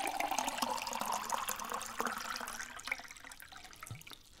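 Water pouring from a plastic pitcher into a cup of ice, the pitch rising slightly as the cup fills; the pour trails off about three seconds in.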